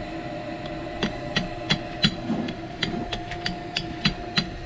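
Hammer tapping out a pivot pin of a saildrive's folding propeller: a quick run of about a dozen light strikes, roughly three a second, starting about a second in. A steady hum runs underneath.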